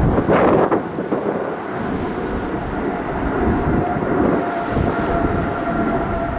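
Boeing 777-300 jet engines at takeoff thrust, a deep, loud rumble with a brief rush near the start. A steady whine of two tones comes in about four and a half seconds in.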